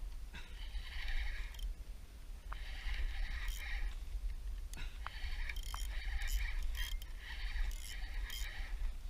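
Kayak paddle strokes: a regular series of splashing swishes, one every second and a half or so, over a steady low wind rumble on the microphone.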